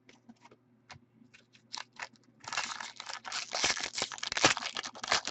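Trading cards and their packaging being handled: a few light clicks and card slides, then, from about two and a half seconds in, a stretch of dense crinkling and rustling.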